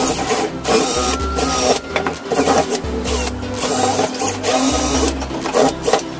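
Background electronic music with a pulsing bass beat and repeating high synth sweeps.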